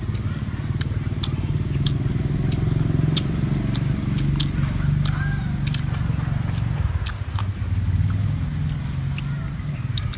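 A low engine hum that swells and eases, with many sharp little clicks and smacks of people chewing cake.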